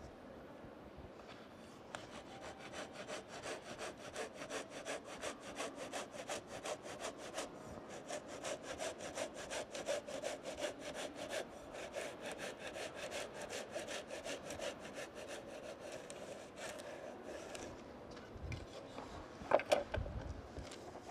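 Japanese hand saw cutting through wood in quick, even back-and-forth strokes, starting about two seconds in and stopping shortly before the end. A couple of sharp knocks of wood follow near the end.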